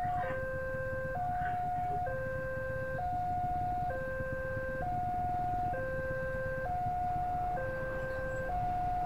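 Railway level-crossing warning alarm sounding: an electronic two-tone signal that switches between a lower and a higher tone about once a second, the warning that a train is approaching the crossing.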